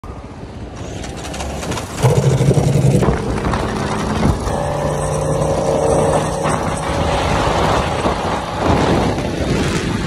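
Modified Ducati V4 superbike engine running on the move. It grows louder over the first two seconds, then holds a steady note for stretches.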